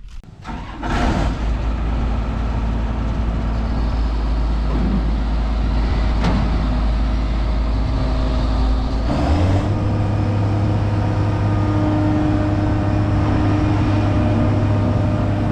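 A combine's diesel engine starts about a second in and runs at a low idle, then speeds up to a higher, steady speed about nine seconds in.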